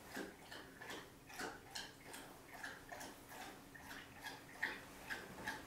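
A dog lapping water from a bowl: faint, quick wet laps, about two to three a second, uneven in strength.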